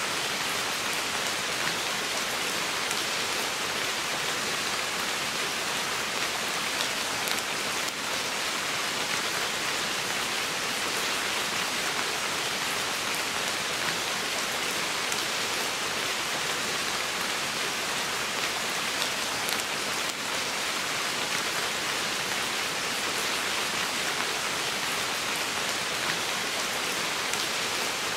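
Steady rain falling on wet forest leaves, an even hiss with scattered single drops ticking through it.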